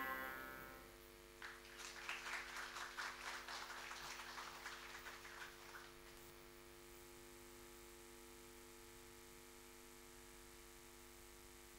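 Audience applauding for about four and a half seconds, starting a second or so in and dying away; the last note of the music fades out at the very start.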